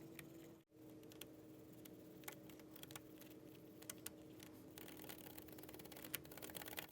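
A 3x3 puzzle cube being turned by hand, its plastic layers giving scattered soft clicks, then a run of rapid, dense clicking in the last two seconds or so.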